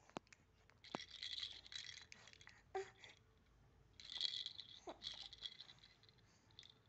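Handheld plastic baby rattle moving in the baby's grip, giving two short bursts of rattling, about a second in and about four seconds in. A couple of brief baby vocal sounds come between them.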